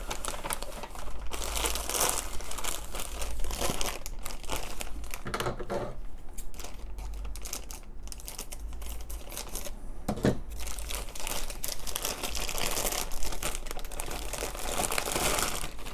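Thin glossy plastic bag crinkling and crackling as it is handled and pulled open to get at the toy wrapped inside.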